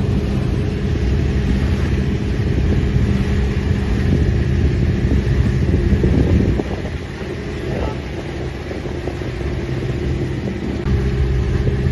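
Engine of a motorized outrigger boat (bangka) running steadily under way, with a constant low drone over wind and water noise. The sound drops in level for a few seconds past the middle, then comes back.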